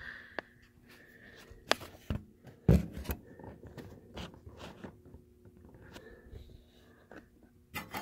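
Scattered light clicks, knocks and scrapes of hands moving wiring and parts inside an old microwave oven's opened housing, the loudest knock about two and a half seconds in, over a faint steady hum.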